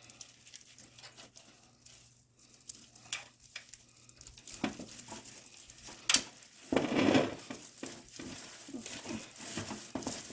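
Rustling and small clicks of a strand of string lights being pushed and arranged by hand, with a louder knock and a burst of rustling about six to seven seconds in.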